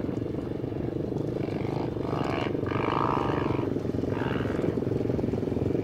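M2R 140 pit bike's single-cylinder four-stroke engine running out on the track, its revs rising and falling three times as the rider accelerates and backs off, growing slightly louder as the bike approaches.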